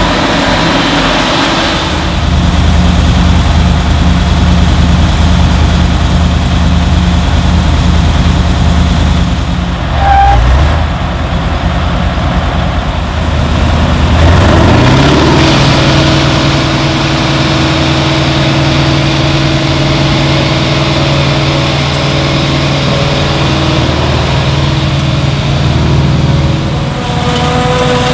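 Claas Jaguar self-propelled forage harvester engines running steadily, in several cut-together shots. About fifteen seconds in, an engine revs up to a higher steady speed.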